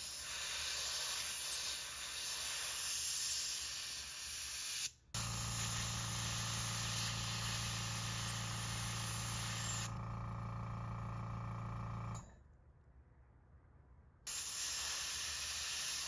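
Airbrush hissing as it sprays black and white paint through a paper stencil onto the gills of a 3D-printed lure. The spray breaks off briefly about five seconds in and a low steady hum runs under it for a while. It stops for about two seconds near the end, then starts again.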